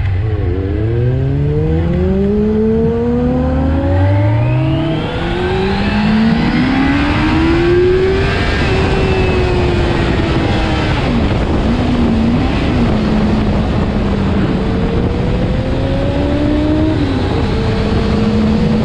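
Inline-four 600 cc sport bike engine pulling away from low revs and accelerating hard, its pitch climbing steeply and dropping back at upshifts about four and eight seconds in, then settling into a steady cruise with small throttle changes. A steady rush of wind noise runs under the engine.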